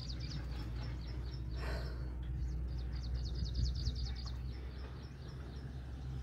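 A bird chirping in quick high trains of about ten chirps a second, over a steady low rumble, with a brief rush of noise about two seconds in.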